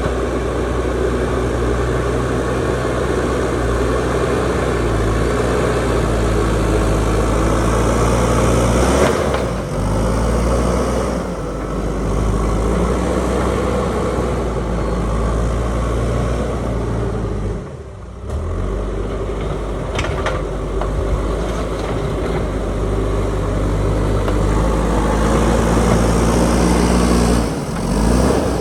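JCB backhoe loader's diesel engine running steadily as the machine works, its pitch shifting up and down at times, with a brief dip in loudness about two-thirds of the way through.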